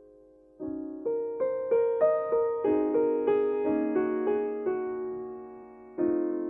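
Piano music: notes struck one after another and left to ring and fade, with a fresh chord about half a second in and another near the end.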